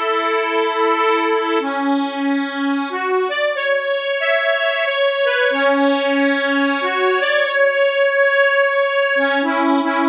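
Accordion sound from music-notation software playback. It holds a chord with a wavering tremolo, moves to a new chord after about two seconds, plays a short melody line over sustained lower notes, and starts a fresh chord near the end.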